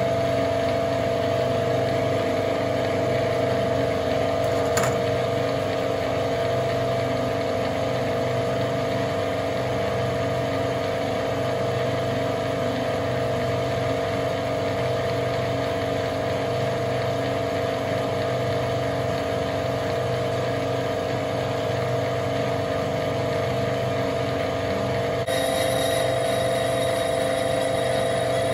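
Metal lathe running with its three-jaw chuck spinning: a steady mechanical hum with a pitched whine. About five seconds in there is a faint click, and near the end a higher whine joins and the sound grows slightly louder.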